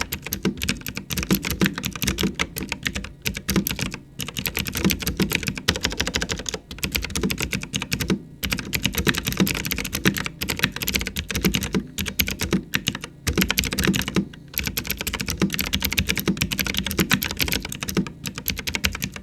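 Fast typing on a mechanical keyboard with clicky blue-style switches (Cherry MX Blue clones) under round typewriter-style plastic keycaps: a dense, continuous run of sharp clicks, broken by a few brief pauses.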